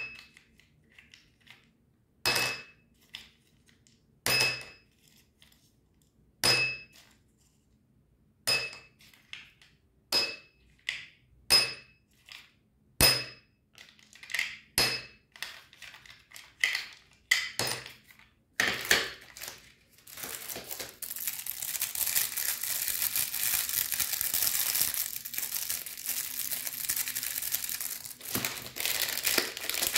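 Candy-coated chocolates and small hard candies dropped one at a time into a small glass, each landing with a short, sharp ringing clink, about every one and a half to two seconds. From about two-thirds of the way through, candy wrappers crinkle steadily as wrapped sweets are handled.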